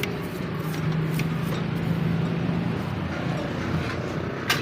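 A vehicle engine running steadily with a low hum, with a few faint clicks and one sharp click near the end.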